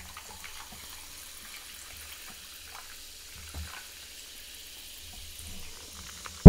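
Sparkling mineral water poured from two bottles at once over ice into glass mugs, fizzing with a steady hiss.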